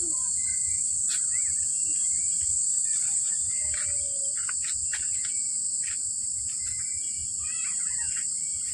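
A steady, high-pitched insect chorus drones without a break, with short bird chirps and quick calls scattered over it.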